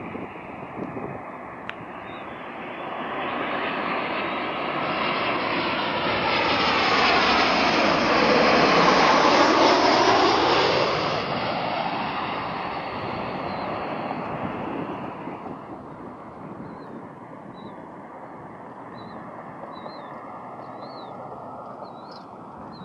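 Boeing 737 on final approach passing low overhead, the noise of its CFM56 turbofan engines building to a peak about nine seconds in. As it goes over there is a sweeping tone that falls in pitch, and the sound then fades as the jet flies away toward the runway.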